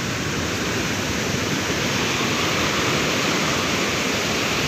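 Ocean surf breaking on the beach: a steady, even rush of wave noise.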